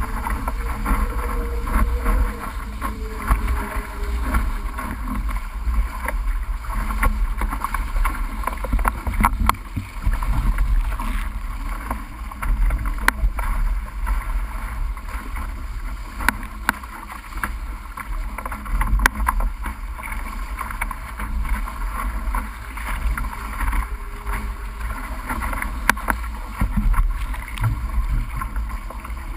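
A D-One sailing dinghy under way: water rushing and splashing at the bow, with wind rumbling on the microphone and frequent short slaps of spray.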